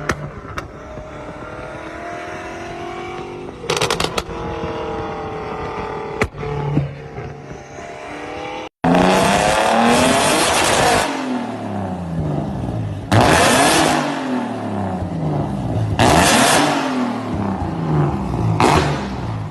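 Tuned car engines revving and falling back, with sharp exhaust pops and bangs. About halfway through, a louder car takes over, revved repeatedly about every three seconds, each rev breaking into a burst of crackle as it drops, with more bangs near the end.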